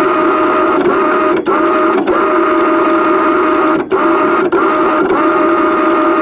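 SEA PRO electric anchor winch running steadily, winding in the anchor rope and pulling the boat toward its anchor. The motor's whine stays level, with a few split-second dropouts.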